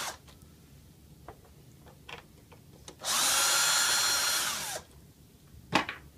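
A power drill-driver runs for about two seconds, backing out one of the screws that hold the synthesizer's LCD unit, then winds down. Small clicks come before it, and a sharp knock near the end.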